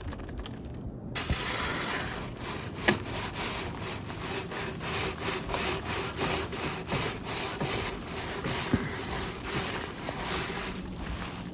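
Chimney brush scraping inside a wood-stove chimney pipe in repeated rhythmic strokes, starting about a second in, scouring out creosote build-up.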